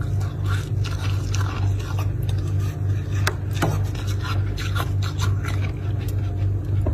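Soft scraping and crackling of frost and snow, scattered irregularly over a steady low hum, with a few sharp clicks, one clear one about three seconds in.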